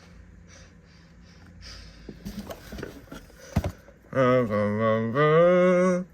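Light clicks and rustling from handling packaging, with a sharp knock, then about two seconds of a loud, pitched voice-like sound that steps in pitch and wavers.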